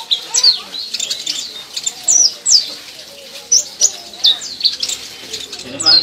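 Purple-throated sunbird (Leptocoma sperata) singing: a quick, irregular run of thin, high chirps and whistles, many sliding sharply down in pitch, in short clusters.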